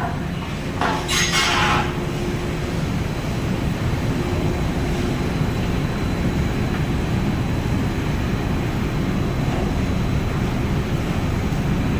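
Industrial rotary drum sawdust dryer line running, a steady mechanical rumble with a faint hum. A short hiss comes about a second in.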